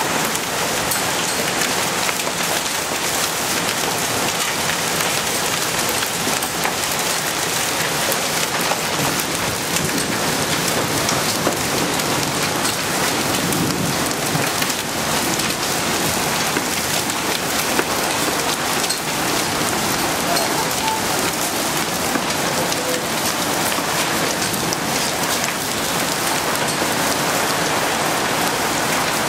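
Thunderstorm downpour of rain mixed with small hail, falling steadily onto a concrete patio and roofs: a dense, even hiss of drops peppered with fine ticks of impacts.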